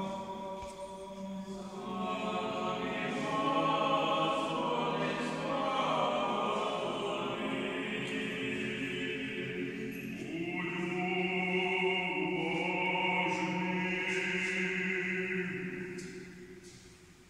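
Church choir singing a slow Orthodox funeral chant in several voices, long held chords. A new phrase starts about ten seconds in, and the singing fades away near the end.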